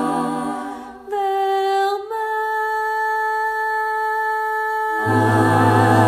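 A choir's held chord dies away, and a single voice sings two long held notes, the second a step higher. About five seconds in, the full choir comes back in on a chord, with low voices underneath.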